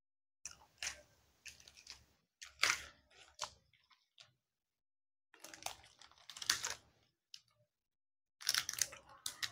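Close-miked chewing of crunchy peanuts: irregular clusters of crunches with short silent gaps between them.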